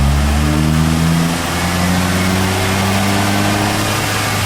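Turbocharged VW Gol 1.0 16v engine pulling steadily in fifth gear, its pitch slowly rising as the lifted front wheel spins up toward 100 km/h, under a steady whirring rush from the spinning wheel. This wheel's bearing is worn and the noisier of the two.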